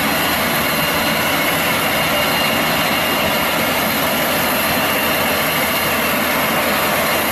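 Street sweeper truck running, a steady engine noise with a strong hiss over it.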